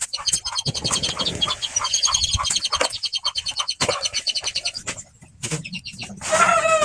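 Birds chirping in fast repeated trills, broken by a few sharp knocks, with a louder, lower-pitched call near the end.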